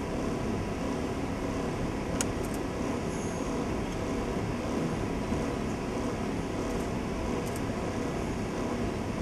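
Steady room noise, an even low hum and hiss, with a few faint clicks about two seconds in and again near the end.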